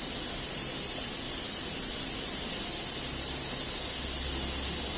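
Steady hiss, strongest in the high range, with a faint low hum coming in about three seconds in.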